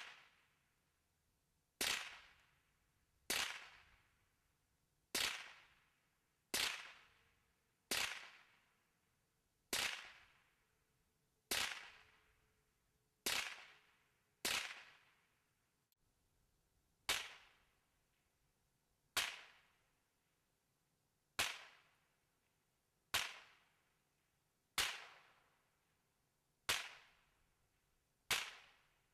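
Gunshots fired one at a time at a steady pace, about seventeen of them, one every one and a half to two seconds. Each is a sharp crack with a short fading tail.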